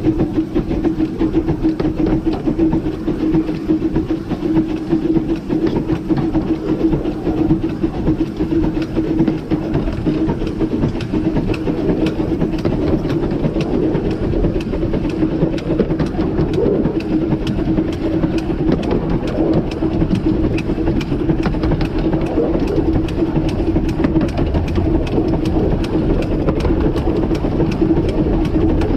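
The Ravenglass and Eskdale Railway's 15-inch gauge steam locomotive River Irt and its train running along the line: a steady rumble of wheels on rails with rapid small clicks and a steady hum.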